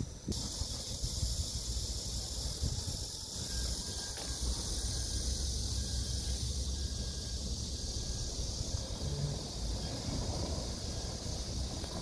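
Cicadas buzzing in a steady, high-pitched drone, over wind rumbling on the microphone.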